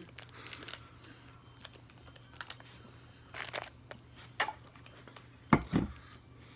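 Eating noises: chewing with small clicks and crinkles from handling a granola bar and its wrapper, and a drink from an insulated water bottle. Two sharp knocks a little past five and a half seconds in are the loudest sounds.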